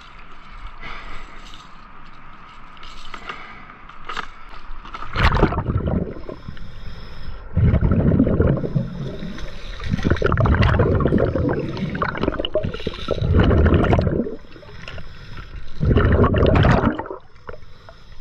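Scuba diver's exhaled bubbles from the regulator, heard underwater: five loud gurgling bursts a few seconds apart, starting about five seconds in. The first few seconds hold only faint clicks and scrapes.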